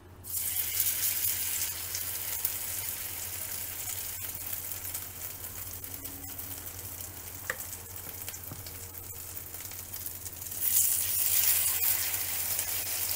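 Grated-zucchini fritter batter sizzling in hot vegetable oil in a frying pan: a steady hiss that starts as the first spoonful goes in and grows louder near the end as another spoonful is added.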